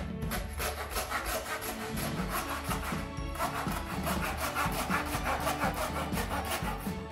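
Butcher's hand bone saw cutting through lamb rib bones in rapid back-and-forth strokes, with a brief pause about three seconds in. Background music plays underneath.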